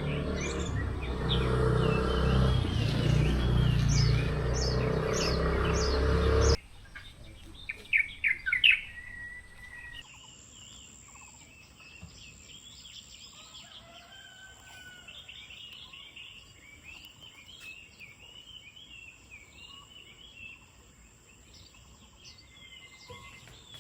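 Wild birds chirping and calling in short repeated trills. For the first six seconds or so this is over a loud low rumble, which cuts off suddenly; after that the birdsong goes on more quietly, with a thin steady high-pitched tone behind it.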